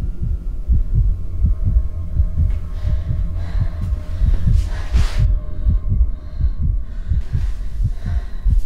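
Horror-film sound design: a deep, rapid pulse of low thumps, three or four a second and uneven, over a steady low hum, like a racing heartbeat. A swell of hiss rises about five seconds in.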